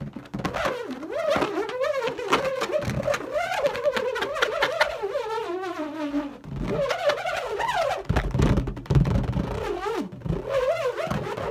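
A steel hex nut spinning around the inside of an inflated latex balloon, its edges buzzing against the rubber in a loud, wavering hum whose pitch rises and falls with the nut's speed. Past the middle the hum dips and gives way to a stretch of rattling before the whirling picks up again.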